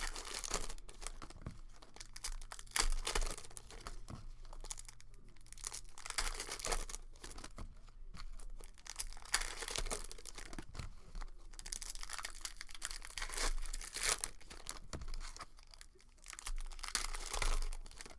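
Hockey card packs being torn open and their plastic wrappers crinkled, in repeated irregular bursts of tearing and rustling.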